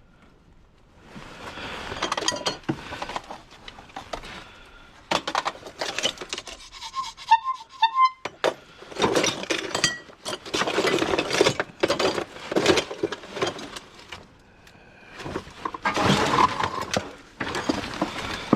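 Rummaging through a box of scrap: hard items clattering, clinking and rubbing against each other in repeated bursts with short pauses, and a brief squeak about seven seconds in.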